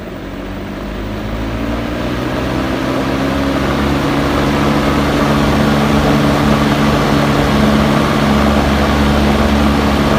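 Powered attic vent fan just switched on for the first time: its motor hum and the rush of air through the blades rise in pitch and loudness over the first few seconds as it spins up, then run steadily.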